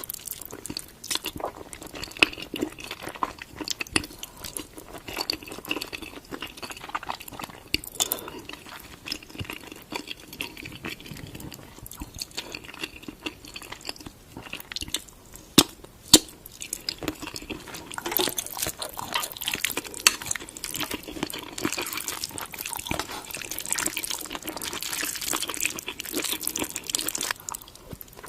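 Close-up wet eating sounds of spicy Korean food: chewing with a steady stream of sticky, wet clicks and smacks, growing denser in the last third.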